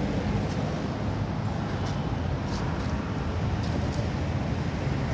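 Steady low outdoor rumble, with a few faint short high ticks.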